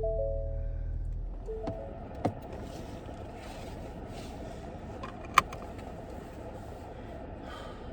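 A low rumble that stops about a second in, with a short rising three-note electronic chime at the start, then a few sharp clicks, one much louder than the rest.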